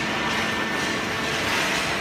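Industrial hydraulic cardboard baler running: steady machine noise with a thin, steady high whine through it.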